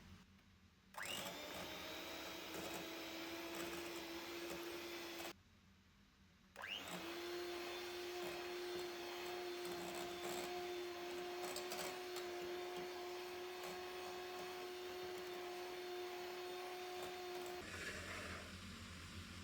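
Small electric kitchen appliance motor run twice. It spins up about a second in and runs with a steady hum for about four seconds, stops, then starts again and runs steadily for about eleven seconds before cutting off near the end.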